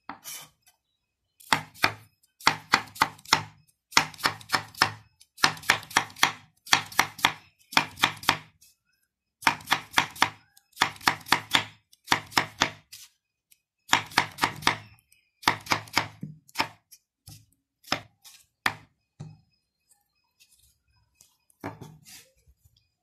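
Kitchen knife slicing a cucumber on a round wooden chopping board: quick runs of knife strokes knocking on the wood, in bunches about a second long. After about sixteen seconds the strokes thin out, stop for a couple of seconds, and a few more come near the end.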